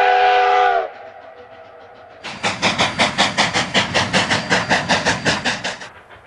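Rio Grande narrow-gauge 2-8-2 steam locomotive's chime whistle sounding a chord that sags in pitch and cuts off about a second in. After a short lull, fast, even exhaust beats start, about seven a second, and stop suddenly near the end.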